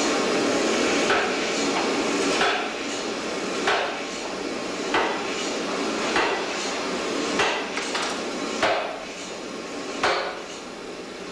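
Metal being struck in a steady rhythm at a heavy machine-shop machine: about eight sharp blows a little over a second apart, over a steady din of shop noise.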